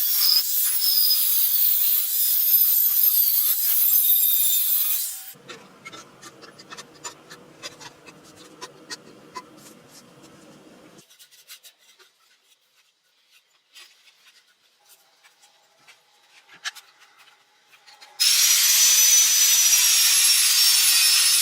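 A tool working on material with a loud rasping noise for about five seconds. Then come quiet scattered clicks and handling sounds. The loud rasping starts again near the end.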